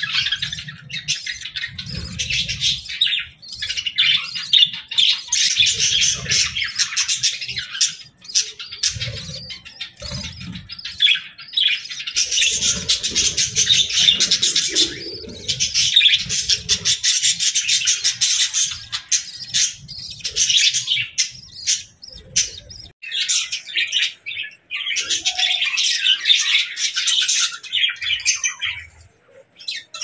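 Budgerigars chirping and squawking rapidly and almost without a break, with a short lull near the end. Low muffled bumps come and go under the chirping through the first two-thirds.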